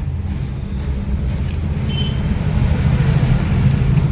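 A car engine idling steadily, a low hum that grows slightly louder toward the end.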